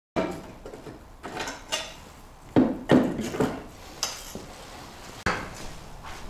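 Steel front luggage carrier of a Honda Today scooter being lifted off its front cover: a string of irregular metal clanks and knocks as the rack clatters against its mounts and the bodywork.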